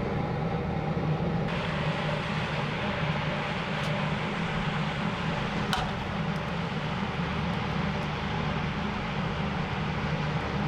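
A machine running steadily with a low hum, brighter in tone from about a second and a half in, with one sharp click near the middle.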